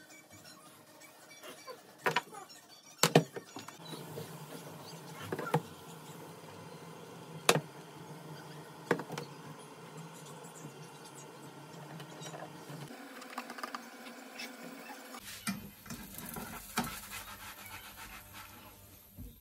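Kitchen utensils on a non-stick frying pan and bowl: sharp knocks and clinks several times, the loudest about two, three and seven seconds in, and a whisk scraping through pancake batter in the pan.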